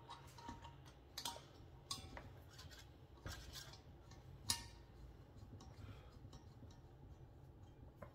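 Faint metallic clicks and ticks of a brass hose fitting being threaded by hand onto a refrigerant reclaim tank's valve, a few scattered clicks with the loudest about four and a half seconds in, over a low steady hum.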